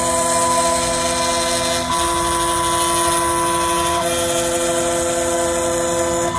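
Desktop CNC mill cutting down a phone IC: a steady motor whine made of several held tones. The tones shift in pitch about every two seconds as the machine changes moves.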